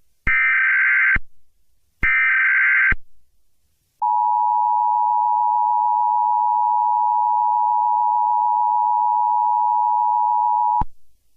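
Emergency Alert System header: two harsh buzzy bursts of digital data, each just under a second and a little over a second apart. About a second later comes a steady, loud alert tone held for nearly seven seconds that cuts off sharply, the signal that an emergency message follows.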